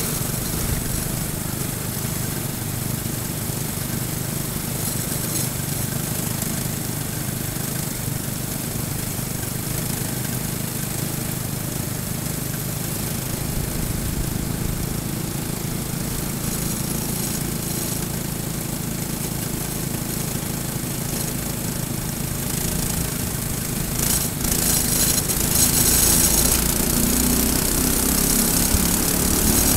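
Racing kart's Briggs & Stratton single-cylinder four-stroke engine running at low to middle revs among other karts' engines. It grows louder as the revs climb on acceleration about three-quarters of the way in.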